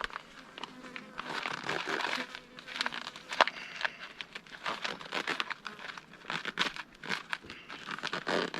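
A food packet being handled and stirred: irregular crinkling and rustling with many small clicks and scrapes.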